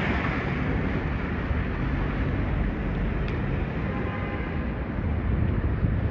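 Steady city street noise of passing traffic, with a heavy low rumble; a faint click about three seconds in and a brief faint tone around four seconds.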